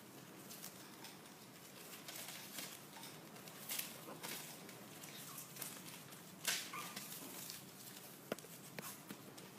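Pomeranian puppies scuffling and playing on newspaper: faint rustling and scattered light scratches and taps of small paws, with one louder rustle a little past halfway.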